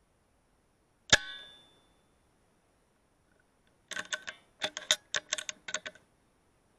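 A single air rifle shot about a second in: one sharp crack with a brief metallic ring. About three seconds later comes a quick run of metallic clicks and clacks as the rifle is handled, typical of the action being cycled for the next shot, with one more click at the very end.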